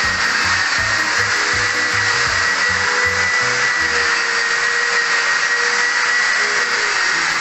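Long-reach pole drywall sander running against a plastered wall: a steady motor whine over the hiss of the abrasive pad rubbing the plaster.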